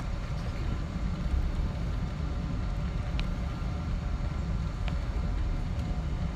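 Cabin noise inside a taxiing Boeing 777-200ER: a steady low rumble from the engines at taxi power and the rolling airframe, with a couple of faint ticks.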